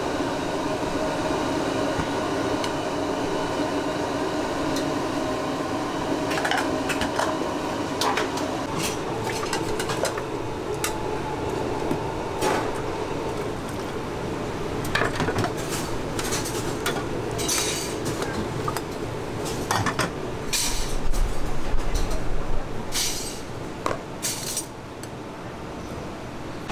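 A metal ladle clinking against a stainless-steel broth pot and a ceramic bowl as beef noodle soup is dished up, with scattered sharp clinks that come thicker in the second half, over a steady background hum.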